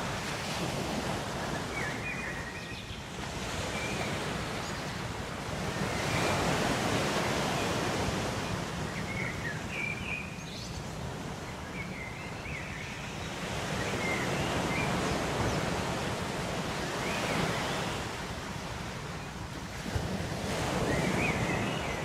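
Ocean waves breaking on a shore, the surf noise rising and falling in slow swells every several seconds. Short high bird chirps are heard now and then over it.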